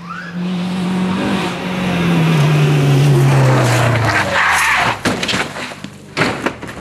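Rally car passing close at high revs, its engine note falling in pitch as it goes by and away. This is followed by tyre and gravel noise and a run of sharp knocks as the car runs wide off the tarmac onto the dirt verge.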